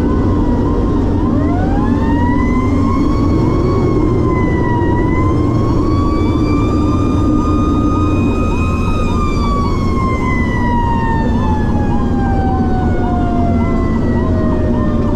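Fire engine sirens sounding together: a fast-repeating yelp, about two cycles a second, runs throughout. A second, wailing siren tone climbs about a second and a half in, peaks around the middle and then slowly winds down toward the end. A steady engine drone sits underneath.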